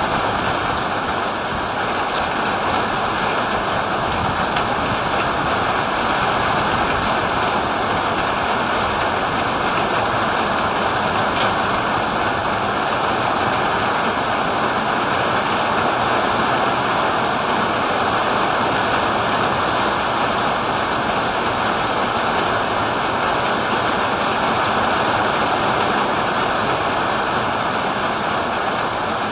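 Heavy rain falling steadily in a thunderstorm, an even, unbroken wash of sound.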